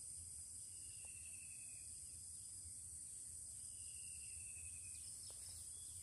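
Steady high-pitched insect chorus, with a thin, slightly falling call about a second long repeating every few seconds.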